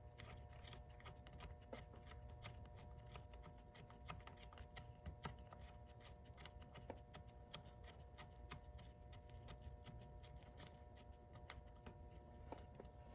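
Near silence with faint, irregular small metallic clicks of hand tools as the shift motor's mounting bolts are run in, over a faint steady hum.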